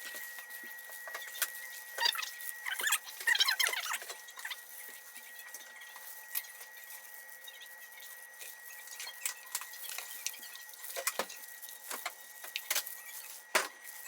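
Small handling sounds: scattered light clicks and taps, with a dense burst of crinkly rustling about three seconds in and a sharp knock near the end.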